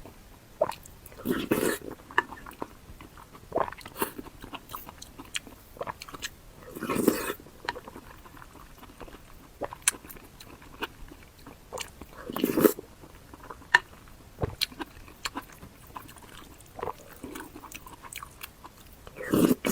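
Close-miked mouth sounds of eating: chewing and biting food with small clicks throughout, and four louder bouts spaced about five or six seconds apart.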